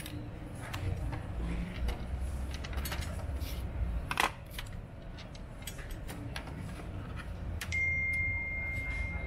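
Small clicks and taps of scanner parts and tools being handled, with one louder click about four seconds in. A steady high tone starts near the end, over a low hum.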